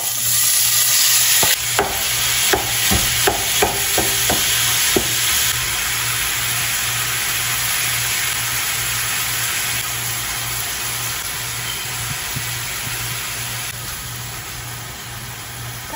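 Raw ground turkey sizzling steadily in hot oil in a frying pan, just put in, the sizzle easing slowly. During the first few seconds a wooden spoon knocks and scrapes a number of times against the steel bowl and the pan.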